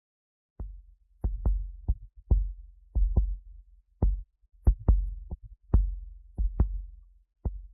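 A run of about fifteen dull, deep thuds at uneven spacing, some in quick pairs, each with a short booming low tail.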